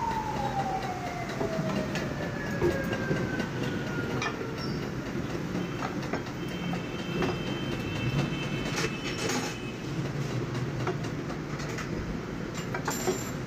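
Tyre-shop workshop noise: a machine's motor whine winding down from high to low over the first few seconds, over a steady rumble with scattered clicks and knocks of tyre-fitting tools.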